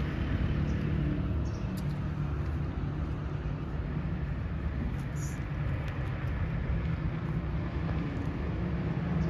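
Steady road traffic: a continuous low rumble with a low engine-like hum, with no clear single event standing out.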